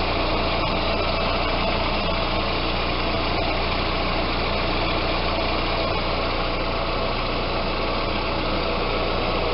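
Audi A4 engine idling steadily, with its power steering pump running quietly on freshly flushed fluid: the pump has stopped humming.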